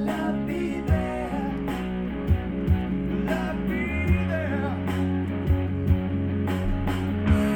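Background rock music: guitar over a steady drum beat, with a singing voice.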